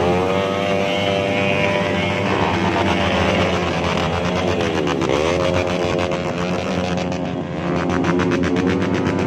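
Several small motorcycles and scooters running at low speed together, their engines revving up and down so the pitches rise and fall and overlap, with a clear dip and rise about halfway through.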